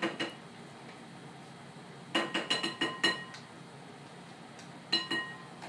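A spoon clinking and tapping against a glass mixing bowl: a pair of clinks at the start, a quick run of about half a dozen about two seconds in, and two or three more near the end, each ringing briefly.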